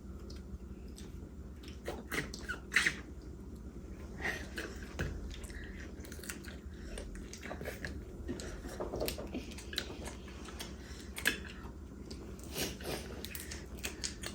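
People eating a seafood boil with king crab: chewing and biting, with scattered short sharp clicks and crackles.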